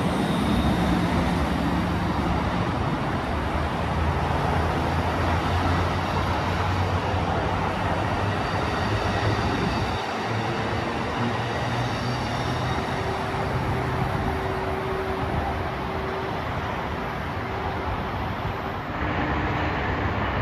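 Amtrak Pacific Surfliner bilevel passenger cars rolling past on the rails: a steady low rumble with a continuous hum underneath.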